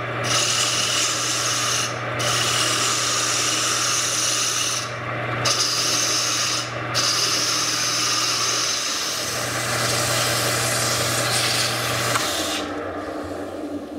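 Rikon 70-100 mini lathe running with a steady motor hum while a turning tool cuts a spinning denim micarta blank, giving a continuous scraping, rasping cutting noise that breaks off briefly a few times. About twelve seconds in, the motor hum steps down and the lathe winds down.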